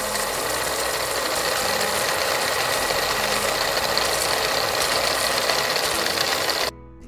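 A steady, noisy mechanical whirring sound effect that plays during a quiz question and cuts off suddenly near the end.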